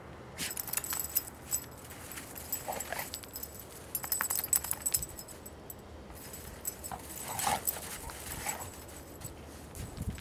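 Dogs' metal collar tags jingling in several spells as two dogs play and nose about in snow, with a few short dog vocal sounds about three seconds in and again near the eighth second.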